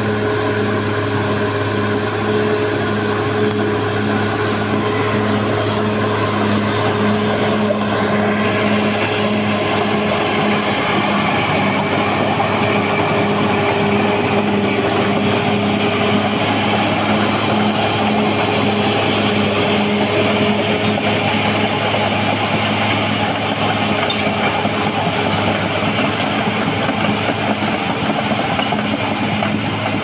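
Caterpillar D6R XL bulldozer's diesel engine running steadily under load as it pushes soil, a continuous drone with a regular pulsing beat.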